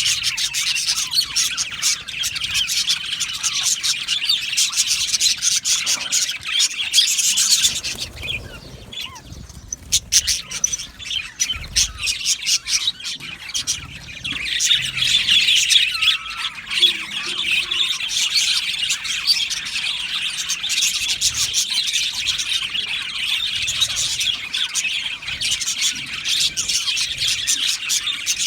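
A flock of budgerigars chattering, chirping and warbling together in an aviary, a dense unbroken chorus. It thins out about a third of the way through, then picks up again.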